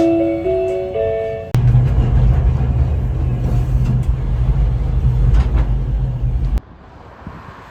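A short chime melody of a few stepped notes, then a sudden cut to the steady low rumble of a vehicle running, which cuts off abruptly about six and a half seconds in, leaving a quieter hiss.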